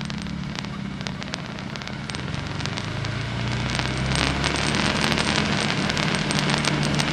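Off-road vehicle engine running at low speed on a rough trail, under dense crackling and clicking from rocks and debris under the tyres. The engine grows louder about three to four seconds in.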